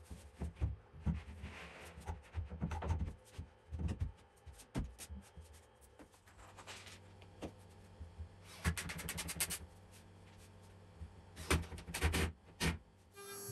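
A sheet of MDF knocked and scraped as it is laid and shifted on a CNC machine's bed, then a cordless drill run into the MDF board in two short bursts, about nine seconds in and again near the end.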